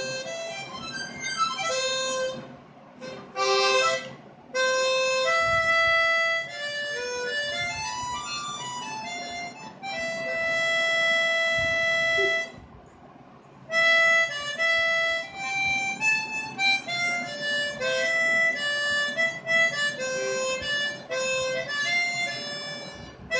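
Hohner Ocean Star tremolo harmonica played solo: a melody of held and moving notes, with a short break about three seconds in and a longer pause a little past halfway.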